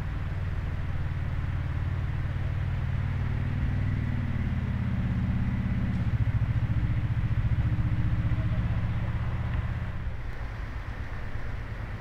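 Diesel engine of a mini wheel loader running under load while it shifts spilled gravel. Its note steps up about four seconds in, drops back a couple of seconds later, and the level eases off near the end.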